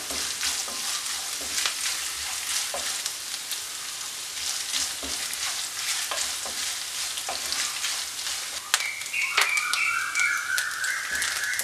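Small pieces of coconut frying in hot oil with dried red chillies and curry leaves, sizzling with frequent crackles as they are browned, and stirred with a spatula now and then. Near the end a high tone comes in and rises in small steps.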